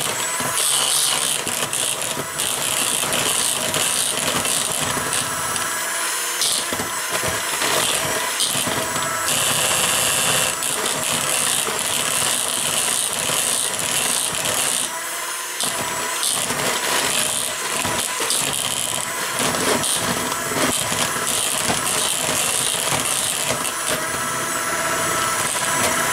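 Electric hand mixer running steadily, its two beaters churning thick cake batter of creamed butter, brown sugar and eggs.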